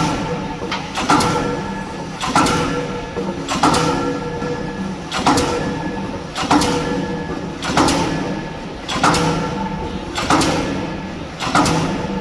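K25 diesel pile hammer driving a spun concrete pile: a steady run of heavy, sharp blows about every 1.2 seconds, each followed by a brief ringing.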